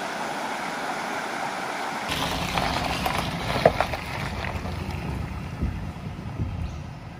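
Creek water running over a shallow rapid. About two seconds in it gives way to a ute driving across a timber plank bridge, its tyres rumbling over the boards with a few sharp knocks, fading as it moves away.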